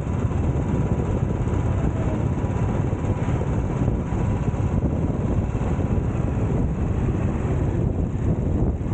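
Royal Enfield single-cylinder motorcycle under way on a road, its engine mixed with steady wind rumble on the low-mounted action-camera microphone.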